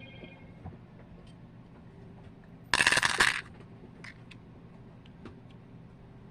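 Small metal jewelry findings jingling together in a burst lasting under a second, about three seconds in, as they are poured or shaken. Light scattered clicks of handling come before and after it.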